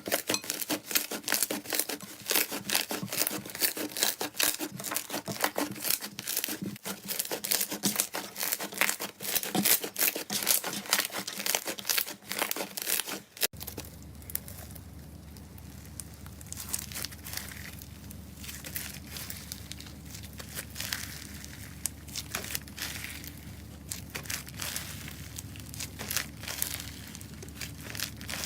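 Slime being squished and stretched by hand, a dense run of fine crackling and popping clicks from trapped air. About halfway it changes abruptly to sparser, softer clicks over a steady low hum.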